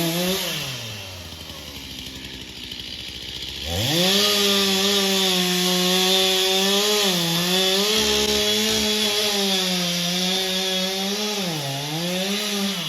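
Chainsaw revving up and down briefly, then running at full throttle from about four seconds in while cutting into a tree. Its pitch dips twice under load, and it drops off at the end.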